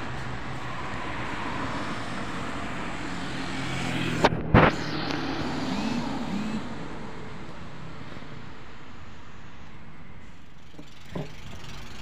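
Motor vehicle engine running steadily with road traffic noise. Two sharp knocks come about four seconds in, and the engine hum fades after about six seconds, leaving quieter traffic noise.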